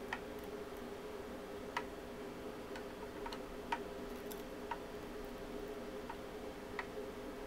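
Small electric cooling fan on a CNC router spindle running with a quiet, steady hum, while the spindle itself is off. A few faint, unevenly spaced ticks sound over it.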